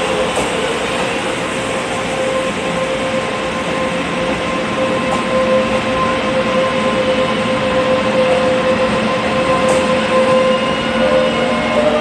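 Taiwan Railways local electric train pulling away from the station: steady whine from the traction motors over wheel and rail noise, growing gradually louder, with the whine starting to rise in pitch near the end as the train gathers speed.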